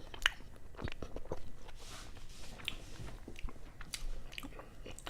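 A person biting and chewing slippery raw sashimi close to the microphone, with many short sharp clicks scattered through.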